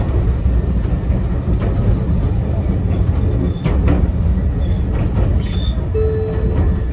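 Enoden (Enoshima Electric Railway) train running, heard from the cab: a steady low rumble of wheels on rail, with a few short clicks and brief faint squeals.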